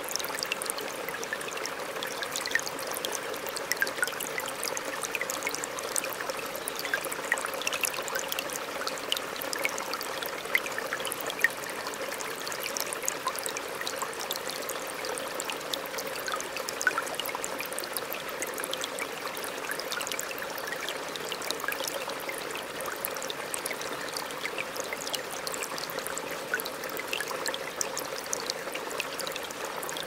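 A small, calm river flowing steadily, an even rush of water with many small, sharp plinks and trickles over it.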